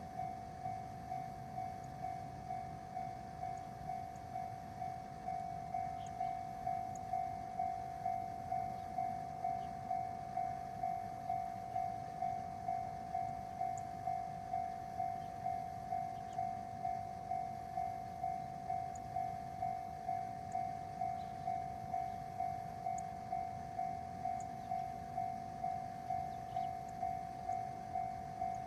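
Japanese level-crossing warning signal ringing: an electronic bell tone repeating evenly about three times every two seconds, over a faint low rumble.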